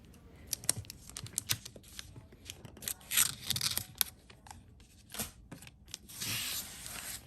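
Scissors cutting open a planner's packaging, a quick run of small snips and clicks, followed by the wrapping being torn and pulled away with rustling and crinkling, longest over the last second or so.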